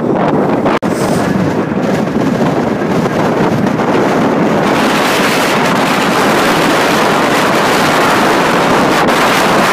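Wide-body jet airliner's engines at takeoff power as it lifts off and climbs away, a steady rushing roar that grows louder and brighter about halfway through. Wind buffets the microphone, and the sound breaks off briefly under a second in.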